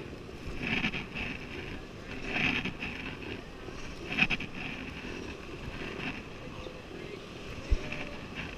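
Rushing river water around an inflatable raft, with wind on the microphone and intermittent splashes of paddle strokes. A single short low thump comes near the end.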